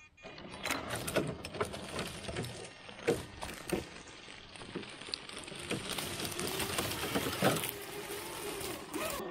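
Traxxas TRX-4 RC rock crawler driving on a dirt trail: its small electric motor and gear drive whine, steadier in the second half, over irregular crunching and clicking of tyres on rocks and gravel.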